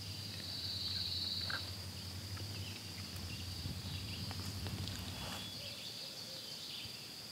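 Steady high-pitched chorus of insects, with scattered light rustling of leaves and brush.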